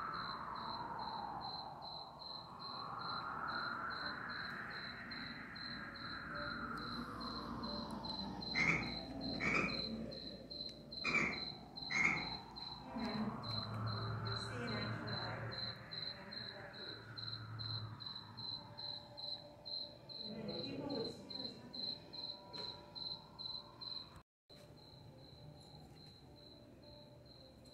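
Cricket chirping in a steady, evenly pulsed high trill. Over it, a broad whooshing sound swells and fades twice, and four sharp knocks come around the middle.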